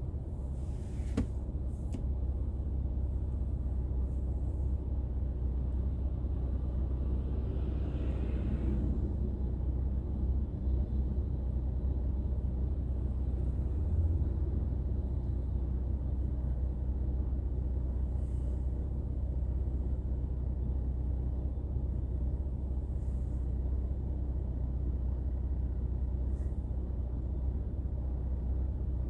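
Steady low rumble of a car driving, engine and road noise heard from inside the cabin. A couple of sharp clicks come about a second in, and a brief swell of hissing road noise comes about eight seconds in.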